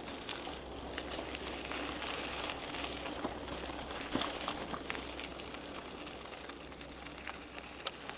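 Bicycle tyres rolling along a dirt woodland trail: a steady crackling hiss scattered with small clicks and pops, with a sharper tick about four seconds in and another near the end.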